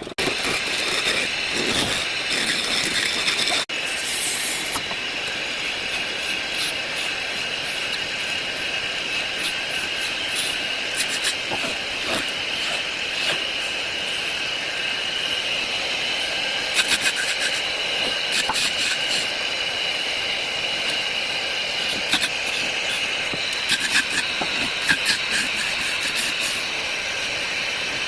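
Woodworking power tool running with a steady high whine, with scattered clicks and ticks over it.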